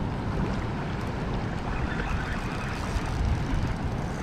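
Steady rush of flowing water close to the microphone, with wind buffeting the mic.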